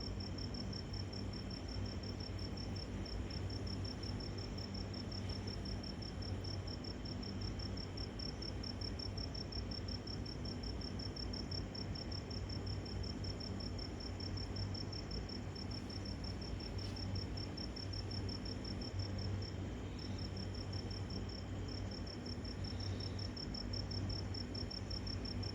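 Crickets chirping in a steady, rapid, evenly pulsed high trill that pauses briefly near the end, over a low steady hum.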